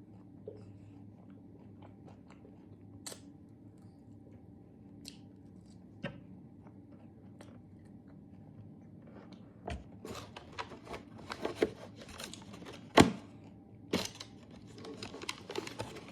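Close-up crunchy chewing and biting of Dubai chocolate, a chocolate bar filled with crisp shredded kataifi pastry and pistachio cream. There are only a few soft clicks at first, then busy crackling crunches from about ten seconds in, with one loud snap partway through.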